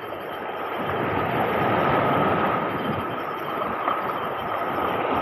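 Steady rush of sea surf washing over rocks mixed with wind on the microphone, with a faint steady whine.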